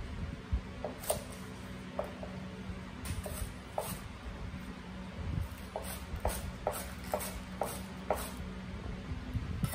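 Kitchen knife chopping on a cutting board: short sharp strikes, scattered at first, then settling into a run of about two a second in the second half, over a low steady hum.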